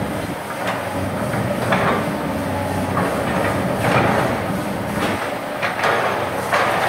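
Hydraulic excavator's diesel engine running hard under load, with repeated metallic clanks and scraping about once a second as the bucket digs and spreads soil.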